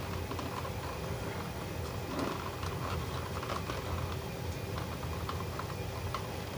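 Scattered light clicks and rustles of electrical wires being pushed and tucked into a junction box by hand, over a steady low hum.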